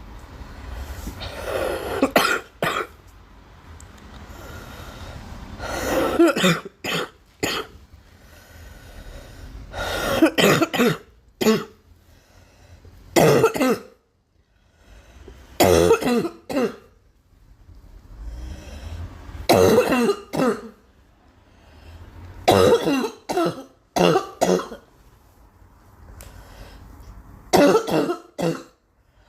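A girl coughing over and over in short bouts of a few coughs, roughly every three to four seconds, each bout preceded by a drawn breath.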